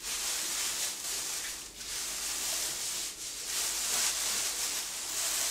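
Thin plastic shopping bag rustling and crinkling as it is pulled out of a paint roller tray that it lined and bunched up by hand, starting suddenly and going on with two brief pauses.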